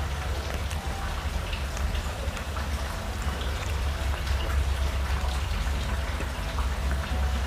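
A steady low hum and hiss, with light scattered clicks of a metal fork scraping food in an aluminium foil tray.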